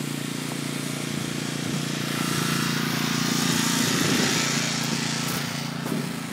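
A motor running steadily with a low hum, under a rushing noise that swells through the middle and fades near the end.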